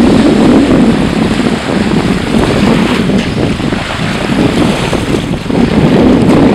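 Wind buffeting the microphone in uneven gusts, with small waves washing on the sandy shore underneath.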